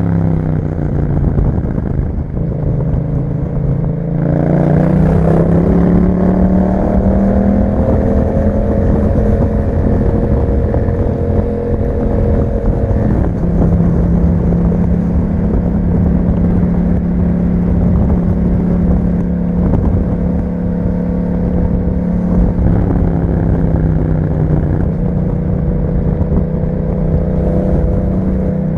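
Yamaha MT-07's parallel-twin engine through an aftermarket Akrapovic exhaust, under way: the engine note falls in the first second or two, climbs as the bike accelerates over the next few seconds, then holds a steady cruise with a slight drop about halfway through and small rises and falls after.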